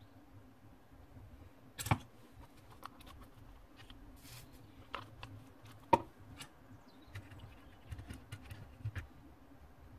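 Scattered clicks and knocks of soldering tools being picked up and handled (an electric soldering iron, a small flux bottle, pliers) over a metal tray, with two sharper knocks about two and six seconds in and a brief hiss near the middle.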